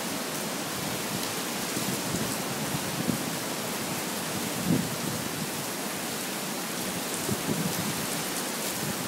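Hurricane-force wind and heavy rain making a steady rushing noise, with a few short, louder gusts; the strongest comes about five seconds in.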